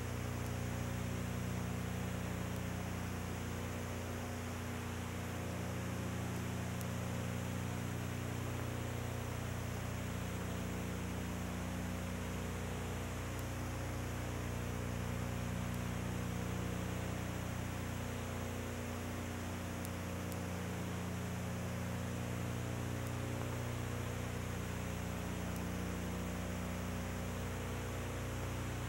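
Steady electrical hum with hiss: several low tones held without change, one of them swelling and fading slowly every few seconds, and nothing else.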